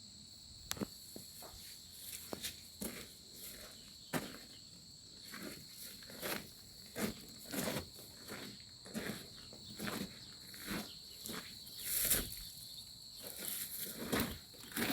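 Irregular footsteps and scuffs, about one or two a second, over a steady high-pitched insect drone.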